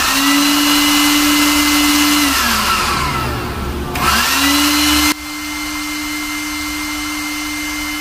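Hanabishi cordless vacuum cleaner motor, running on a rebuilt 18-cell battery pack, tested by switching it on and off: it spins up to a steady whine over a rush of air, is switched off about two seconds in and winds down, then is switched on again and spins back up. About five seconds in the air noise drops suddenly while the motor keeps running steadily.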